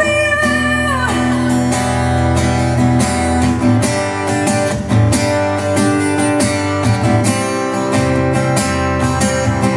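Acoustic guitar strummed steadily in a live song, with a woman's held sung note that ends about a second in; the rest is guitar alone.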